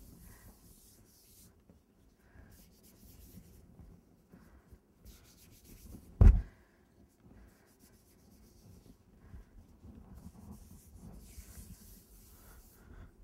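Hands rubbing and smoothing a sheet of fondant over a cake: soft, faint rubbing and rustling, with one sharp thump about six seconds in.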